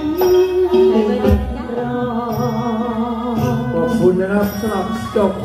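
Live stage music with a singer holding long, wavering notes over a band, with low drum beats underneath.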